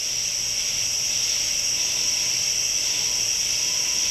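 Steady, high-pitched hiss with no speech, unbroken and even in level. A faint steady tone joins it about two seconds in.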